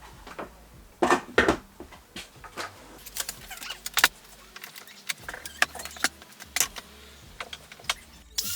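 A clamp being fitted and tightened onto a wooden shelf board: a run of irregular clicks, clacks and knocks, with louder knocks about a second in and again near four seconds.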